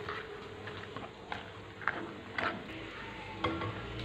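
Faint scattered clicks and light knocks of a plastic spoon and plastic bowl being handled as cooked rice is stirred with oil and set back into a microwave oven. A low steady hum comes in near the end.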